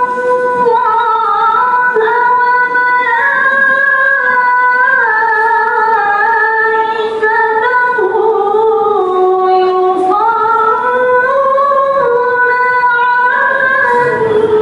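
A woman singing a sholawat (Islamic devotional song) into a microphone without instruments, in long held notes that glide from one pitch to the next.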